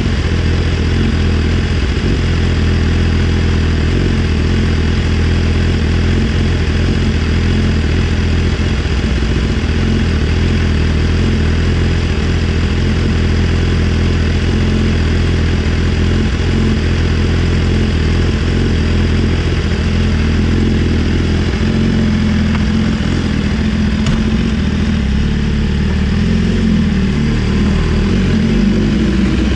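BMW S1000RR inline-four engine running steadily through an Austin Racing GP1R full-Inconel exhaust, with a slight shift in tone about two-thirds of the way in.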